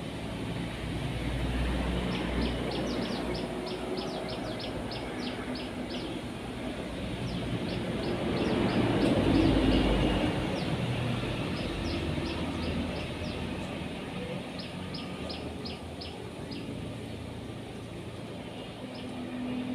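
Outdoor background: a low rumble, typical of a passing vehicle, swells to a peak about halfway through and fades. Over it a bird gives quick series of short, high, falling chirps in three bursts.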